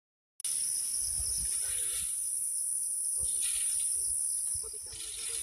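Steady, high-pitched chorus of insects shrilling, coming in after a brief dropout at the very start and easing off near the end.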